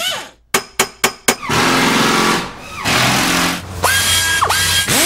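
Tool sound effects: four sharp clicks or knocks in quick succession, then a power tool's motor whirring. Near the end it spins up to a steady whine, dips briefly and returns.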